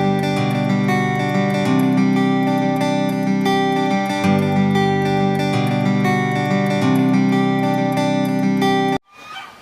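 Acoustic guitar music with a repeating plucked and strummed pattern, which cuts off suddenly about nine seconds in.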